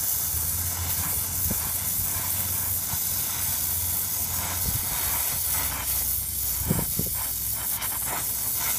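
Brazing torch flame burning with a steady hiss while a copper refrigerant line joint on a replacement compressor is brazed, over a low steady hum and a few light knocks.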